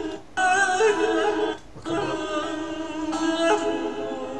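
Male tenor voice singing a Turkish folk melody in long, ornamented phrases, lifting into head voice, with a plucked saz accompanying him.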